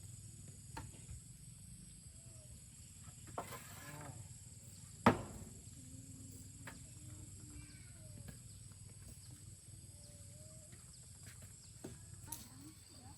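Faint, short animal calls scattered throughout, with one sharp, loud knock about five seconds in.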